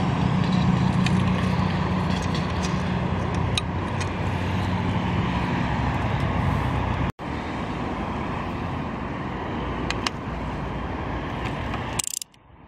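Steady motor-vehicle noise with a low engine hum, strongest in the first half, over an outdoor background hiss, with a few faint light clicks. It cuts out for an instant about seven seconds in and drops away sharply near the end.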